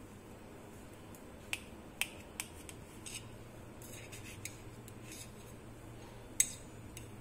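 A knife blade cutting through a soft cake and ticking and scraping against the steel plate beneath it: a few light clicks and short scrapes, the sharpest click about six seconds in.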